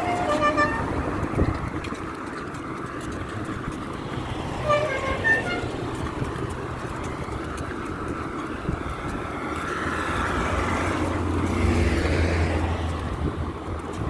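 Road traffic going past, with short car-horn toots near the start and again about five seconds in. A vehicle's engine hum swells as it passes, from about ten to thirteen seconds in.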